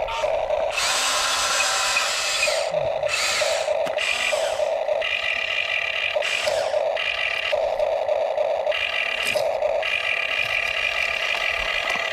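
Small electric motors of radio-controlled construction models whining in short on-off bursts of about half a second to a second, each at a steady pitch, with a few rushing bursts of noise between them.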